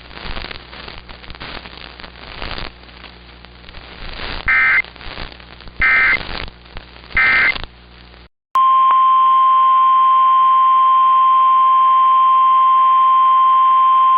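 Crackling radio static carries three short, loud bursts of EAS digital data tones: the end-of-message code closing the alert. After a sudden cut to a moment of silence, a steady, loud NOAA Weather Radio warning alarm tone near 1050 Hz begins, announcing the next alert.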